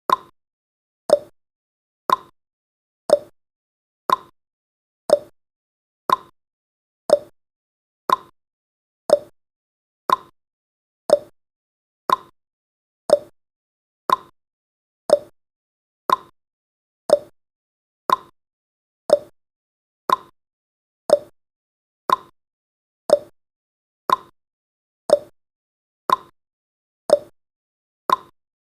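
Clock-style ticking sound effect of a countdown timer, one sharp tick every second, alternating between a slightly higher and a slightly lower tick like a tick-tock.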